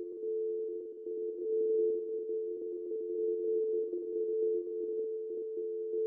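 Telephone dial tone: a steady, unbroken two-note hum, as heard on a North American phone line between voicemail messages.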